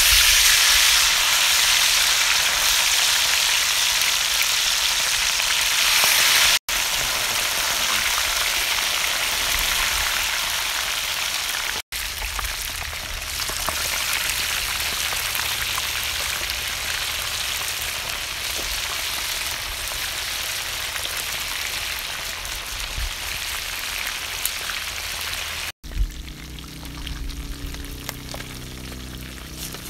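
Pieces of chili-marinated snakehead fish deep-frying in a pan of hot oil: a loud, dense sizzle that starts as the fish goes in and slowly eases off. It cuts out for an instant three times and is quieter near the end.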